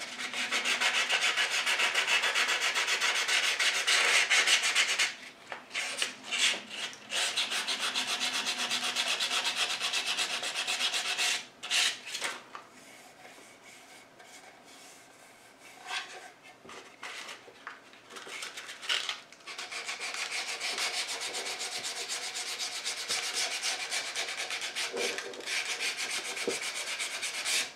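220-grit sandpaper rubbed by hand along the edge of a wooden cradled panel, smoothing a rough edge. The strokes come in stretches of several seconds, with a quiet spell about halfway through.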